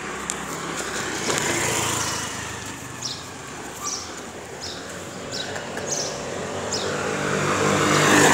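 Street traffic, with motor vehicles passing and the loudest one swelling up near the end. Light regular clicks of sandal footsteps on tarmac come about once a second through the middle.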